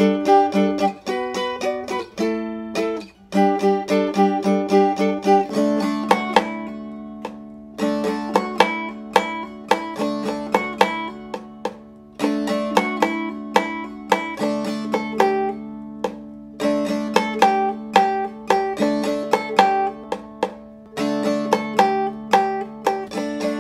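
Background music played on plucked strings: quick picked notes in repeating phrases, over a held low note from about a quarter of the way in.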